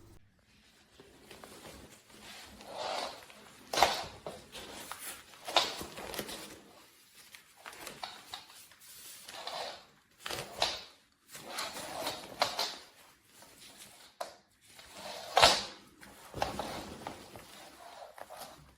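Irregular rustling and bumping handling noises, with two sharper knocks about four seconds in and again near the end.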